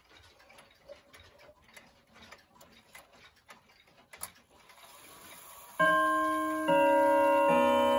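Howard Miller Jennison triple-chime wall clock ticking while its minute hand is turned forward by hand, then starting its quarter-hour chime about six seconds in: three ringing notes on the chime rods, struck a little under a second apart, each left sounding on.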